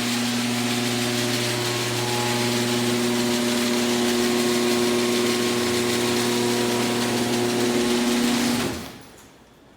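Electric garage door opener motor running steadily as it drives the door closed, a low hum that cuts off about eight and a half seconds in as the door finishes closing.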